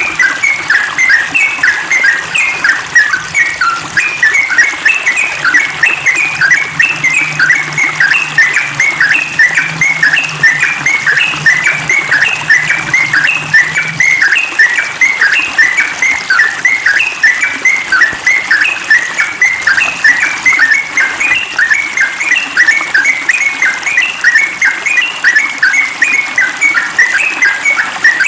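Yellow-vented bulbul (trucukan) singing a rapid, unbroken string of short bubbly notes, several a second, in the fast continuous 'ropel' style that bird keepers prize.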